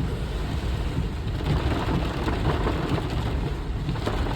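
A vehicle driving down a flooded road: a steady low rumble with a wet hiss over it and faint crackling about halfway through.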